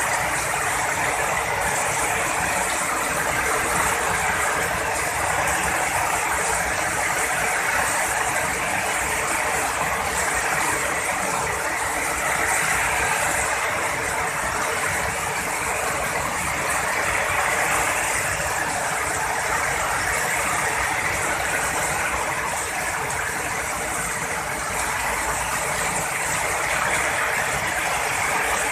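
Heavy rain pouring steadily, an even hiss that holds at one level throughout.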